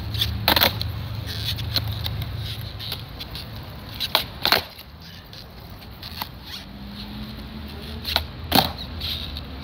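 Skateboard rolling on smooth concrete flatground with a steady low rumble from the wheels. Sharp wooden clacks of flatground tricks cut through it: one near the start, then two pop-and-land pairs about half a second apart, one around the middle and one near the end.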